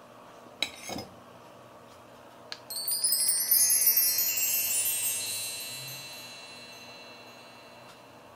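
A short knock, then a descending run of high, bell-like chime tones, like a hand swept across bar chimes, starting about three seconds in and fading away over several seconds.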